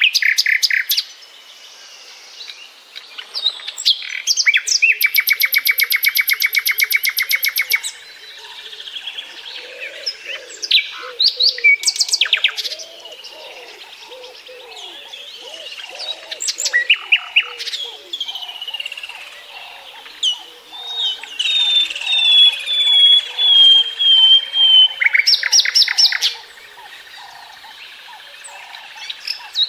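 Common nightingale singing, with a short pause between each varied phrase: fast trills of rapidly repeated notes, clear whistled notes, and a run of notes that falls step by step near the end. Fainter calls sound underneath.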